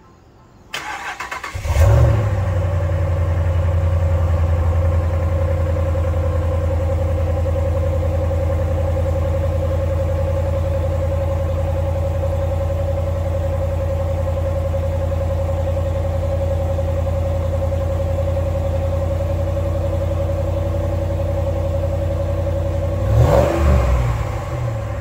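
A 2012 Ram 1500's 5.7 L Hemi V8, fitted with JBA shorty headers and a Proven Ground dual rear-exit exhaust, cranks and fires about a second in. It flares loudest as it catches, then idles steadily. It is briefly blipped once near the end.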